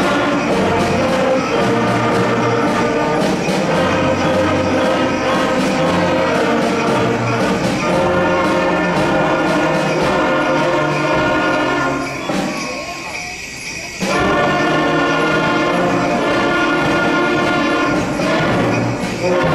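Fifth-grade concert band playing, with flutes, clarinets, brass and percussion sounding together. About two-thirds of the way through it thins to a quieter held passage for a couple of seconds, then the full band comes back in.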